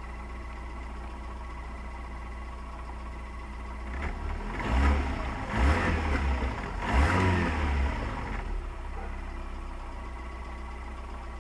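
Lada Kalina 16-valve four-cylinder engine idling, then revved up three times in quick succession a few seconds in before dropping back to a steady idle.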